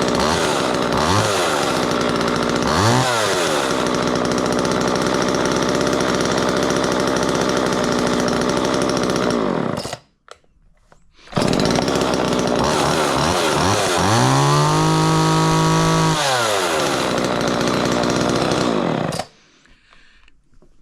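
Small chainsaw engine idling, blipped up and back down twice near the start. It cuts out about ten seconds in and is running again a second later. It is then revved up, held high for a second or two, dropped back to idle and shut off.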